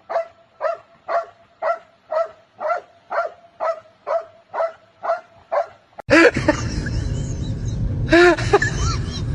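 A dog barking in a steady, even run of about two short barks a second for six seconds. About six seconds in it cuts abruptly to a louder, hissy passage with short rising-and-falling cries.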